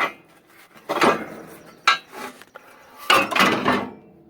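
Metal clanking from hand tools and loose steel parts being worked on an old square baler: four sudden clanks with a little ringing, near the start, about a second in, about two seconds in, and a longer clatter about three seconds in.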